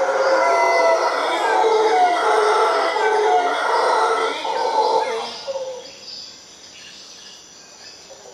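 Mantled howler monkeys howling, several voices overlapping, breaking off about five and a half seconds in. Birds chirp in a quick repeating pattern throughout.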